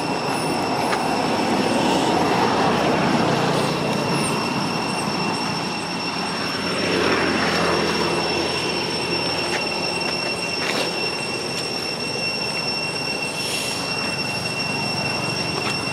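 Cicadas droning in a steady, high-pitched tone over a loud, even rushing noise, with a few brief high squeaks.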